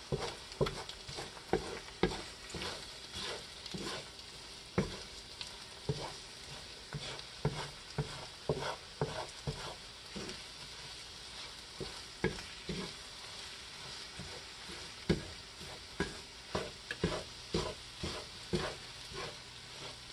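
Wooden spatula scraping and knocking against a cast iron skillet as eggs are broken up and scrambled, over a steady sizzle of eggs frying in hot oil. The strokes come irregularly, a few a second, with a short lull about two-thirds of the way through.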